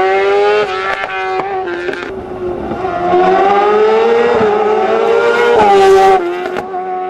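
Fiat 500 race car's BMW S1000RR superbike inline-four engine revving hard at high pitch. The pitch climbs, drops about half a second in, steps quickly around a second in, climbs steadily from about three seconds in to its loudest, then falls away sharply near the end as the throttle comes off.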